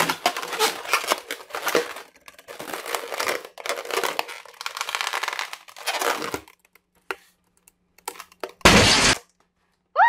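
Hands squeezing and twisting an inflated latex modelling balloon, the rubber squeaking and crinkling for several seconds, then the balloon bursting with one loud pop near the end.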